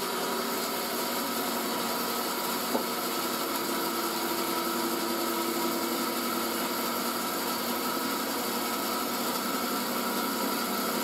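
Bandsaw running steadily with no load, a constant hum with a few steady tones over a hiss. One short click about three seconds in.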